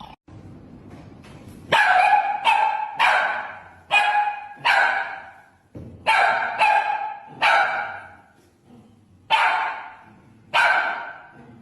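A dog barking about ten times in clusters of two or three, with short pauses between the clusters. The barks begin a little under two seconds in.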